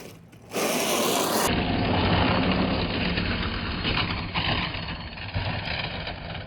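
3D-printed RC tank running, its drive motors and tracks making a steady mechanical noise; it starts abruptly about half a second in.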